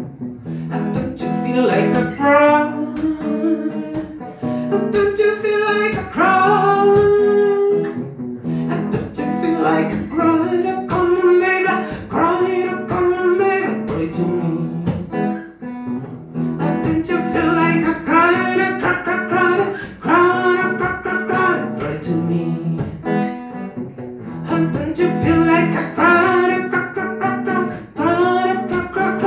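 A man singing a soul ballad in phrases with short breaks, accompanied by his own strummed acoustic guitar.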